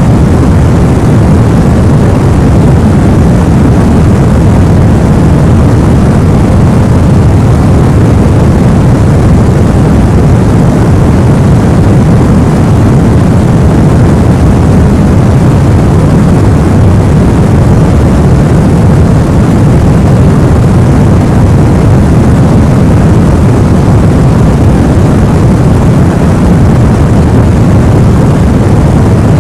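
Steady white-noise track, a dense, even rumble weighted to the low end, with no changes.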